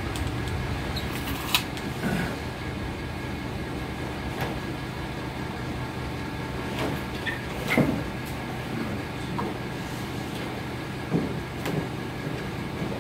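A steady mechanical hum with a few separate knocks and clicks, from a door being taken off a cabinet.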